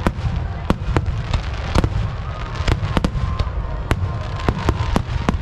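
Aerial fireworks shells bursting at a fireworks display: a rapid, irregular string of sharp bangs, about three a second, over a continuous low rumble.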